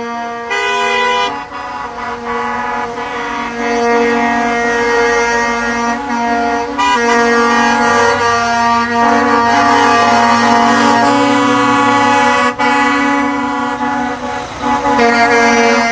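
Several vehicle horns, truck air horns among them, honking in long overlapping blasts as a convoy of trucks drives past. The mix of horn tones changes every few seconds as different vehicles sound.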